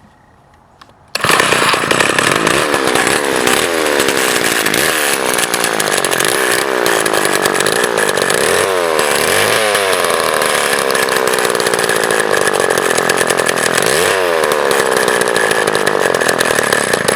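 Vintage Lombard AP42D two-stroke chainsaw engine running with no bar or chain fitted, revved up and down several times. It comes in suddenly about a second in. The spinning clutch rattles, and the saw runs well, though the owner thinks it probably needs a tune-up and a carb kit.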